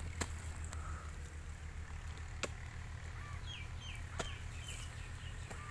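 A hoe chopping into wet soil just after the start, then a few more sharp knocks, over a steady low rumble. A small bird chirps a quick run of short, falling notes about three seconds in.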